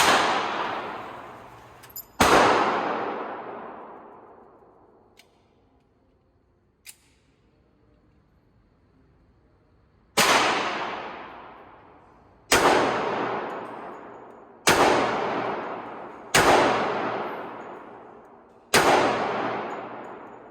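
Seven pistol shots from a .45 ACP 1911: two about two seconds apart, then a pause of about eight seconds broken only by two faint clicks, then five more at roughly two-second intervals. Each shot is sharp and trails off in a long echoing decay.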